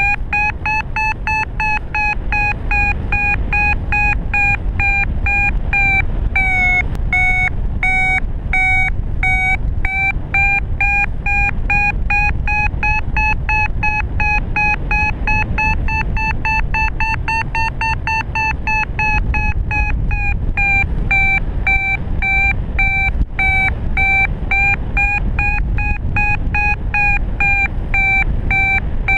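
Paragliding variometer beeping in a rapid, continuous train of short pitched beeps whose pitch drifts slowly up and then down, over wind rushing past the microphone. Fast, steady beeping like this is the vario's signal that the glider is climbing in lift.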